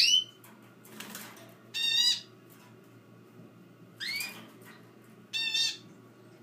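Small caged birds calling: sharp chirps that sweep upward alternate with rougher, layered calls, four calls roughly two seconds apart. A soft rustle comes about a second in.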